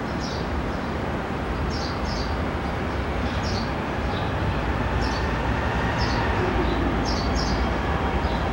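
CSX freight train approaching behind its diesel locomotive: a steady low rumble of engine and rolling cars that grows a little louder in the second half. Birds chirp briefly about once a second over it.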